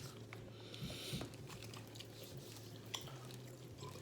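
Faint close-up chewing and mouth sounds from eating crab, with small scattered clicks and smacks. A faint low hum stops near the end.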